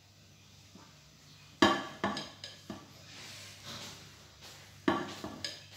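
A spoon knocking a few times against a mixing bowl of cake batter, sharp clicks about a second and a half in, again just after, and near the end, with light scraping between.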